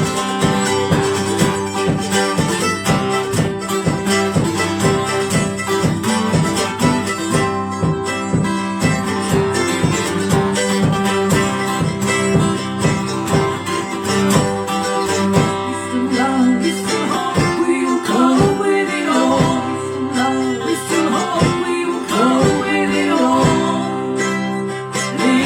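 Acoustic guitar strummed in a steady rhythm through an instrumental passage of a live folk-pop song.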